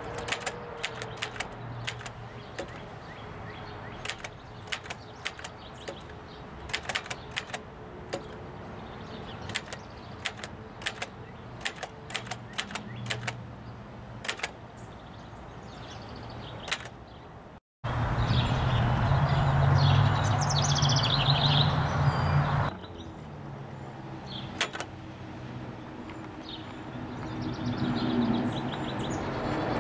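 Remington Standard 12 manual typewriter being typed on: irregular sharp key strikes, several a second. After about 17 seconds the sound cuts out briefly, then gives way for about five seconds to a louder steady rumble, followed by a few scattered clicks.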